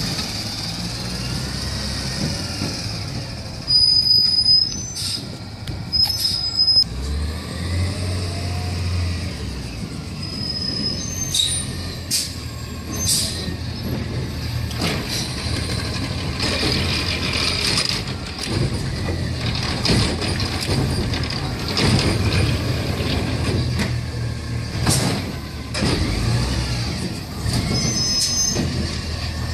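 Autocar ACX garbage truck with a McNeilus ZR automated side-loader body, its natural-gas engine running, with short brake squeals and air-brake hiss as it stops at the carts. Several loud bangs come as the arm slams carts against the hopper to empty them.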